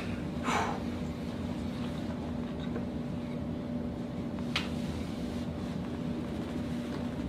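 A steady low hum runs throughout. A short rushing sound comes about half a second in, and a single sharp click about four and a half seconds in: a joint cracking during a chiropractic adjustment of the leg.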